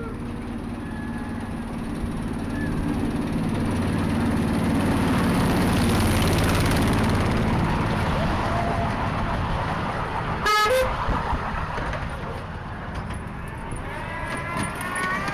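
Miniature railway carriages passing close by, their wheels rumbling on the track, growing louder and then easing off. A short horn toot sounds about ten seconds in.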